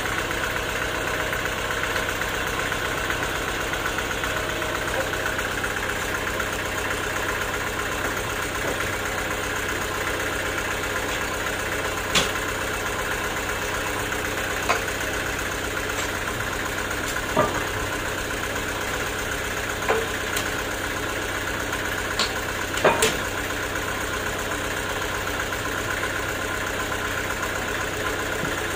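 Band sawmill's engine running steadily without cutting. Several sharp knocks come in the second half, most likely the log being shifted on the carriage; the loudest is a quick double knock.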